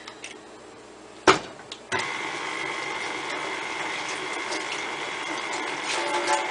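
A sharp knock about a second in, then a KitchenAid tilt-head stand mixer starts up, its motor running with a steady whine as the flat paddle beats eggs into creamed butter and sugar.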